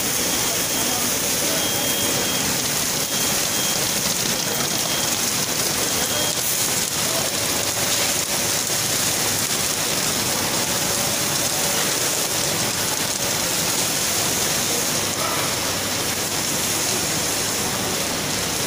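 Steady machine noise of an automatic kettle popcorn processing line running: a constant even hiss with faint humming tones.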